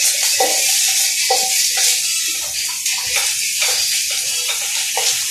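Garlic sizzling as it fries in hot oil, with a spatula scraping and knocking against the pan in repeated stirring strokes, about two a second.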